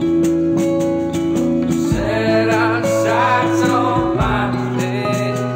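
A band's song recording: drums, bass and guitar under a lead melody of held notes, which waver with vibrato from about two seconds in.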